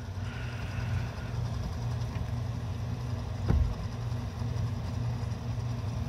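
Dehumidifier running: a steady low hum with airflow noise, and one light knock about halfway through.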